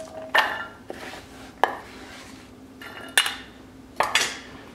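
Handfuls of diced celery scooped off a wooden cutting board and dropped into a stainless steel bowl: four short clattering sounds about a second apart, one of them a sharp clink.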